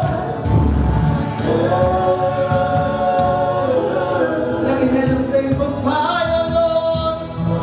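Gospel choir singing long held chords that change every few seconds, with a slightly crackly sound from the camera's own microphone.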